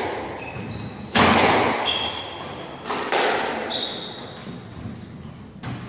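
A squash rally: the ball is hit hard against racket and walls, each strike echoing in the hall, with a loud hit about a second in and another about three seconds in. Short high squeaks of court shoes on the wooden floor come between the hits.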